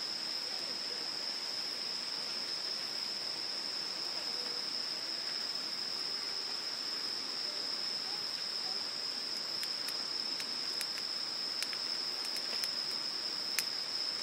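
A steady high-pitched insect trill, unbroken throughout, over the even rush of a shallow stream. From about ten seconds in, scattered sharp clicks and crackles join in.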